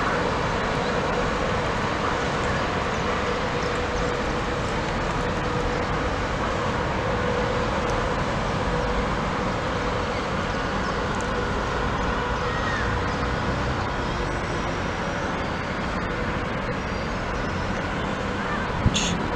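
Steady outdoor rumble of a distant electric locomotive moving away along the line, mixed with road traffic. A faint hum from the train fades out about halfway, and a sharp knock comes near the end.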